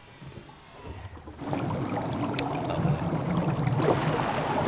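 Rushing, splashing water that swells in about a second and a half in and then runs on at a steady level.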